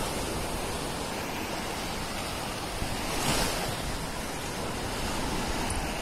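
Sea surf washing onto a sandy beach: a steady rush of small breaking waves, with one wave breaking louder about three seconds in.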